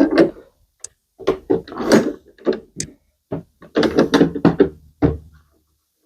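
A clamp being set and tightened on a glued-up wooden frame: an irregular run of knocks, clunks and scrapes, busiest in the middle, as the clamp's metal parts meet the wood.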